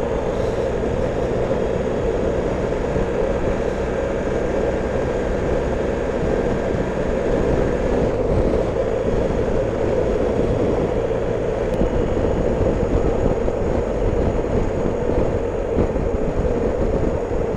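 2019 BMW R 1250 GS Adventure's boxer-twin engine running at a steady cruise, mixed with steady wind rush on the microphone.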